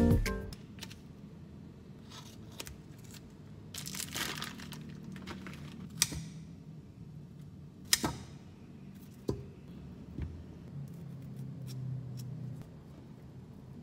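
Quiet food-prep handling at a kitchen counter: rustling and crinkling, with a few sharp clicks and knocks of utensils against a stainless steel bowl and cutting board.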